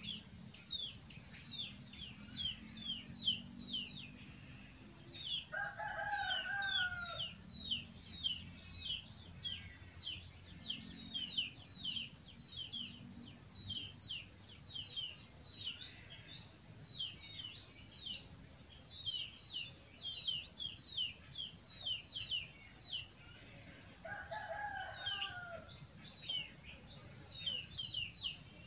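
A rooster crows twice, about five seconds in and again about twenty-four seconds in, over a steady high-pitched insect drone and a constant run of short, falling bird chirps.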